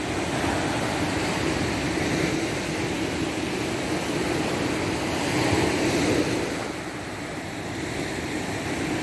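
Surfcasting reel's drag clicking in a continuous buzzing rattle as a hooked gilthead sea bream pulls line off the spool.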